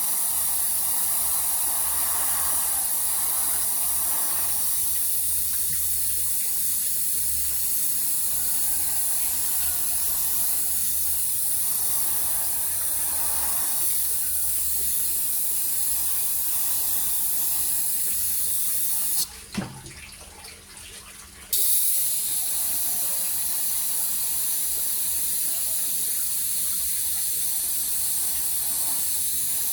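Airbrush spraying paint: a steady hiss of air. It cuts off about 19 seconds in with a click, then starts again about two seconds later.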